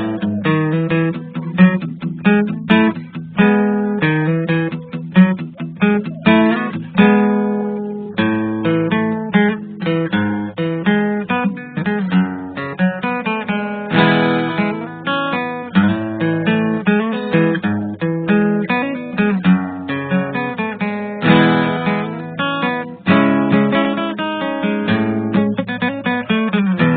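Acoustic guitar music: a steady stream of plucked notes and strummed chords.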